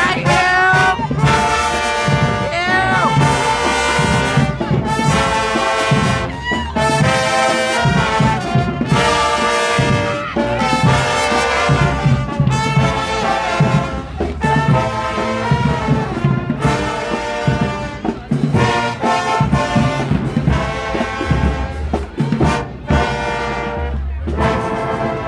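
High school marching band playing as it parades past, with trumpets and trombones carrying the tune over a steady drum beat.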